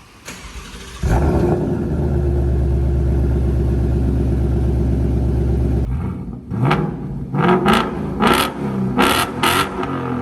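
2021 Ford Mustang Mach 1's 5.0-litre V8 exhaust running loud and steady, then blipped through a series of quick revs in the second half.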